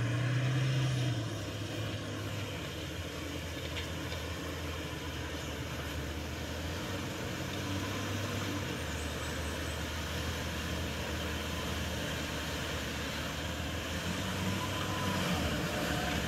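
Toyota Hilux's 2.4-litre four-cylinder turbodiesel running steadily under load as the pickup climbs a muddy slope, a low hum that grows a little louder near the end as it comes closer.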